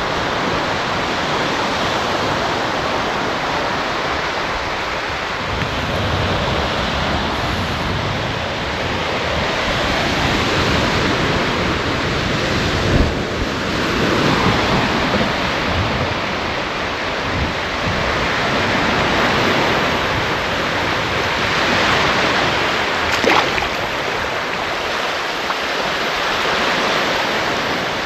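Surf breaking and washing on a sandy beach, a steady rush that swells and eases every few seconds. Two brief knocks, about halfway through and again near the end.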